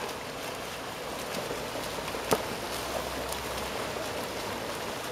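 Water polo players swimming and splashing through the pool, a steady watery wash, with one sharp slap a little over two seconds in.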